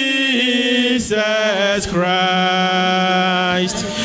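A woman singing a slow worship chant into a microphone: long held notes with short breaths between them, one note held for almost two seconds near the end.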